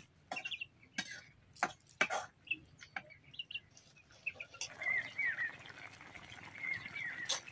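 A metal spatula clicking and scraping against a steel kadai at intervals, with small birds chirping from about halfway through.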